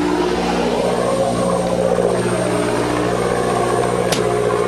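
Fishing boat's engine running with a steady, even hum, and a single sharp click about four seconds in.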